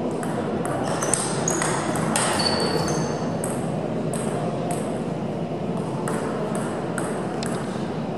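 Table-tennis ball hits on bats and table: quick sharp pocks with a short high ring in a fast run over the first few seconds, then a few scattered hits later, over a steady hall background.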